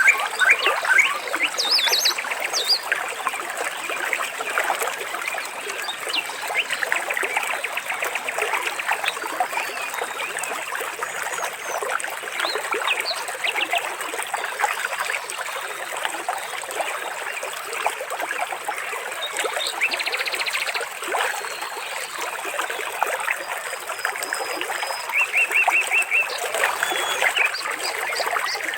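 Water trickling steadily, with birds chirping over it and a short rapid trill near the end.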